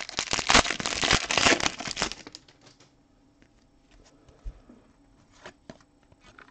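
Foil hockey-card pack wrapper crinkling and tearing as it is ripped open, dense and loud for about two seconds, then only a few faint clicks as the cards are slid out.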